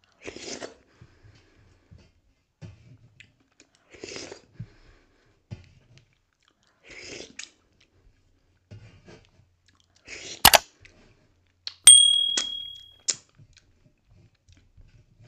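Close-up eating sounds of dhido and sisnu eaten by hand: short wet bursts of chewing and mouth sounds a few seconds apart, with a loud click about ten seconds in. About twelve seconds in, a knock on the metal plate leaves it ringing with a high tone for about a second.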